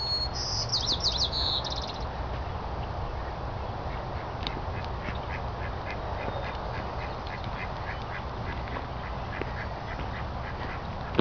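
Ducks quacking at a distance in a long, even run of short quacks, about three a second, with a brief high chirping trill near the start.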